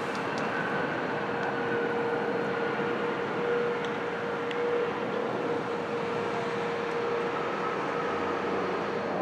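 Embraer regional jet's turbofan engines rolling out on the runway just after landing: a steady rushing with a faint engine whine that slowly falls in pitch as the jet slows.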